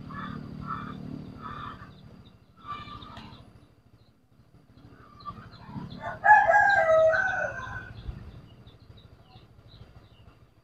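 A rooster crows once, loud and drawn out for over a second, about six seconds in. Before it, small birds chirp in short, quickly repeated notes.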